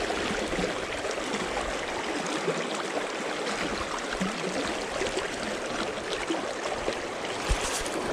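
Shallow, rocky stream rushing steadily over stones, with a single brief thump near the end.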